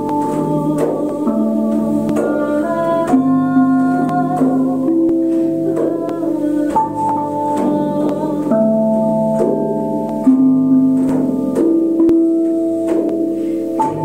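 Slow live music of sustained, overlapping ringing tones that step to a new pitch every second or two, most new notes starting with a light strike.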